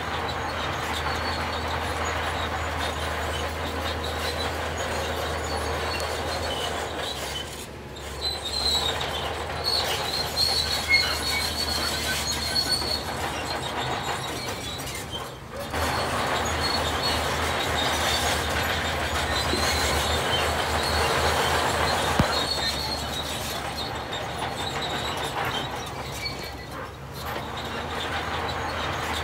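Heavy construction machinery working: a steady diesel rumble with metallic squealing and clatter. The noise drops briefly about 8 and 15 seconds in and again near the end.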